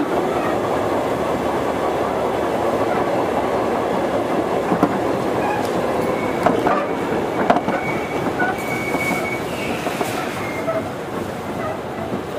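Running sound inside a Sotetsu old 7000 series electric motor car (Hitachi GTO-VVVF inverter), the train approaching a station stop: steady rumble of wheels on rail with a few sharp clicks from rail joints, and a steady high squeal for a few seconds past the middle. The sound eases slightly toward the end.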